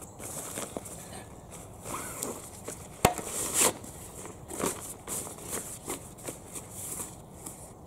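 Canvas bag being held open and rummaged through: fabric rustling and scraping in short irregular bursts, with one sharp click about three seconds in.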